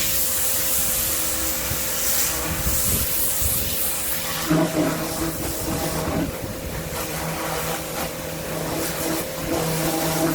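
Kärcher K7 electric pressure washer running, its motor and pump humming steadily under the hiss of the high-pressure water jet spraying onto the patio paving. The hum grows stronger about four and a half seconds in.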